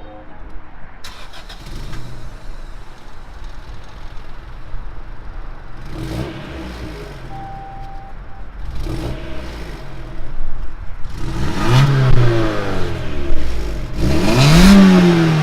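Acura Integra (DC2) B18 four-cylinder engine on its stock exhaust, idling and revved several times, each rev rising and falling in pitch. The last revs, near the end, are the highest and loudest.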